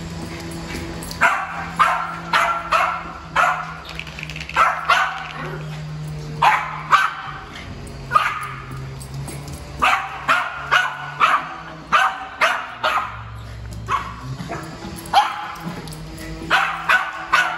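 Yorkshire terrier barking over and over in quick runs of sharp, high yaps: excited, anxious barking at being taken out for a walk. A steady low hum runs underneath.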